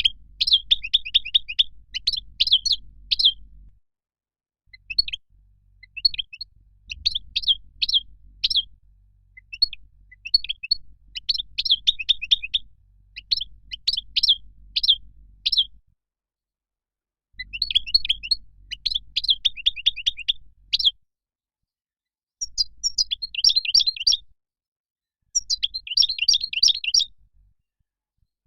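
European goldfinch song: phrases of rapid, twittering high chirps a few seconds long, broken by short pauses.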